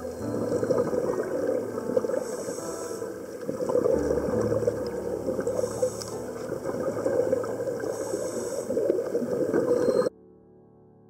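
Underwater scuba-diving sound: a diver's regulator breathing with exhaled bubbles gurgling, breaths coming about every two to three seconds over a steady low hum. It cuts off suddenly near the end.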